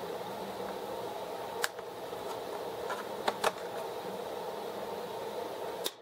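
Steady background hum with a few sharp plastic clicks from hands working at the underside of a laptop's case: one about a second and a half in, a quick pair a little past three seconds, and one near the end.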